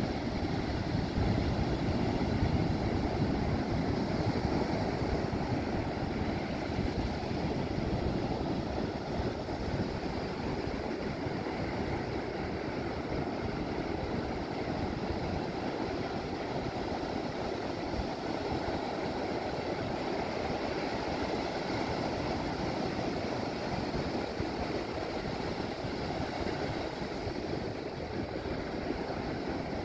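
Ocean surf: waves breaking offshore and foam washing up the sand, a steady low rush that is a little louder in the first few seconds.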